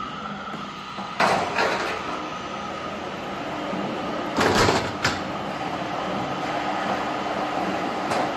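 Roll forming machine for steel roofing sheets running steadily, with two loud metallic clatters of sheet metal, about a second in and again around the middle, and a short click just after.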